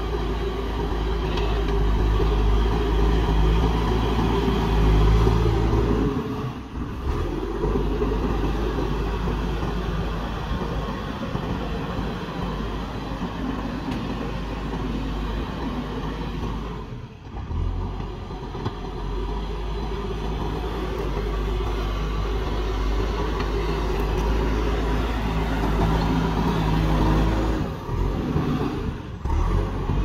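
JCB backhoe loader's diesel engine running under load as the machine pushes and levels soil with its front bucket. The engine note eases off briefly three times, about a quarter of the way in, at the midpoint and near the end, then picks up again.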